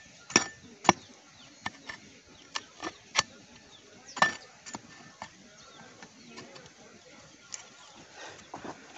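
Small hand hoe chopping and scraping into hard, dry dirt: about a dozen irregular sharp strikes, the loudest about four seconds in. It is digging around a buried piece of an old iron rake.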